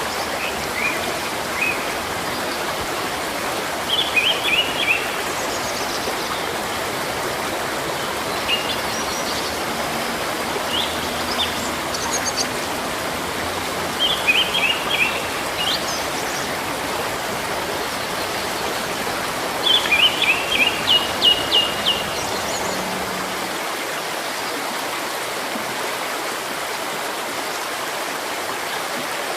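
Steady rush of running water from a stream, with small birds chirping over it in short quick runs of high notes, three times louder clusters and a few single calls between.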